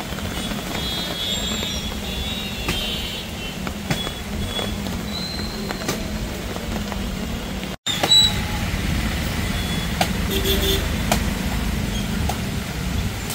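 Street ambience of traffic on a wet road: a steady noise of tyres and engines. It drops out for an instant a little over halfway through.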